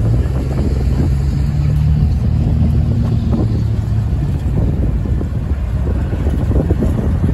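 Union Pacific diesel freight locomotive running with a steady low engine drone as the train rolls slowly past; the drone weakens after about four seconds as the locomotive moves on. Occasional wheel knocks sound over the rail, with wind buffeting the microphone.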